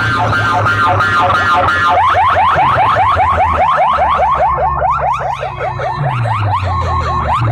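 Electronic siren-style alarm effect played very loud through DJ loudspeaker boxes. It starts as a fast warbling trill, then from about two seconds in turns into rapid rising whoops, about six a second, over a low steady drone that slides down in pitch near the end.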